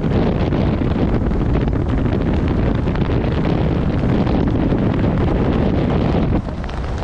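Wind buffeting the camera's microphone during a tandem parachute descent under an open canopy: a loud, steady rush that eases a little near the end.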